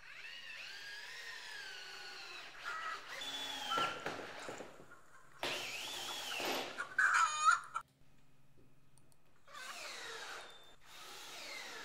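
Yellow cordless drill working on the coop's wooden frame in several short runs, its motor pitch rising and falling with the trigger. A brief burst of rapid clicking comes about seven seconds in.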